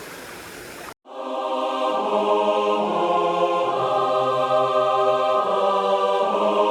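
Background music of held, slowly changing chords, cutting in suddenly about a second in after a brief stretch of faint outdoor water and wind noise.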